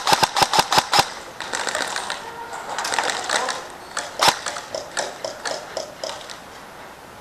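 Airsoft electric gun (AEG) firing a rapid burst of about nine shots in a second, followed by scattered softer clicks and rustle, and a single sharp shot about four seconds in.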